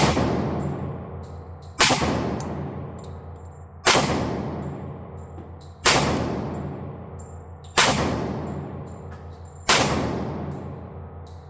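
Six shots from a Tisas D10 1911 pistol in 10mm firing Blazer Brass practice ammunition, one about every two seconds. Each shot trails off in a long echoing decay.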